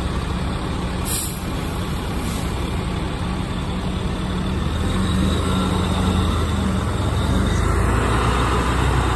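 Pierce aerial ladder fire truck's diesel engine running as the truck pulls away at low speed, with a short hiss of air about a second in. The engine grows louder in the second half as the truck moves off.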